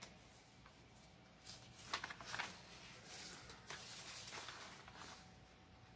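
Faint rustling of printed paper sheets being handled and leafed through, in a few short bouts, the clearest about two seconds in.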